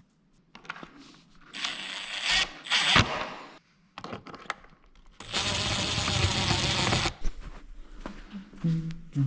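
Workshop handling sounds: clicks and knocks, with a short burst of hissing about a second and a half in and a longer hiss of nearly two seconds about five seconds in. Music starts near the end.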